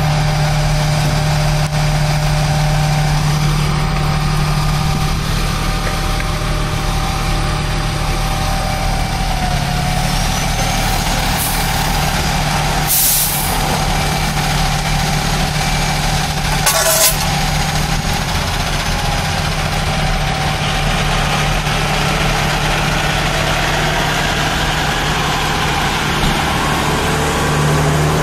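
Tower ladder fire truck's diesel engine idling steadily. About halfway through come two short, sharp hisses of air from its air brake system, a few seconds apart.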